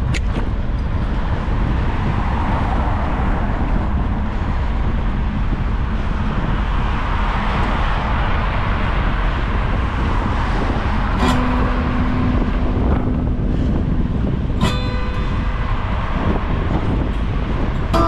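City traffic noise with a steady rumble of wind on the microphone, heard from a moving bicycle. A level tone sounds for about two seconds around the middle, and a brief sharp sound with ringing tones comes near the end.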